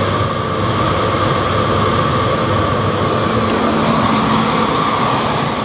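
Philips P99 cylinder vacuum cleaner running steadily, its motor and rushing air making a loud, even drone. A low hum joins in a little past halfway.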